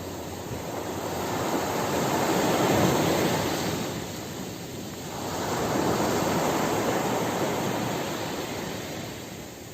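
Sea waves breaking and washing up the shore, the surf swelling twice: once about three seconds in and again around six seconds in.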